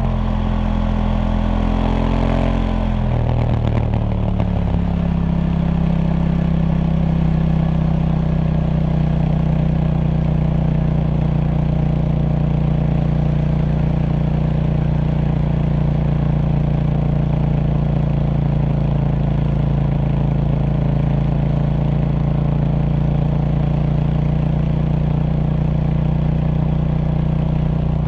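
KTM Duke 790's parallel-twin engine on its stock exhaust, its revs falling in steps over the first few seconds, then settling to a steady idle.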